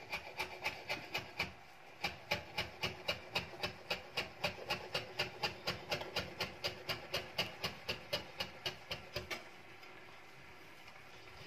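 Santoku-style kitchen knife chopping lemon zest on a wooden chopping board: quick, even taps of the blade on the wood, about five a second, with a brief pause about a second and a half in. The chopping stops about nine seconds in.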